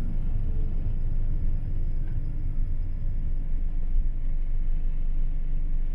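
Steady low rumble of a vehicle running, even in level throughout.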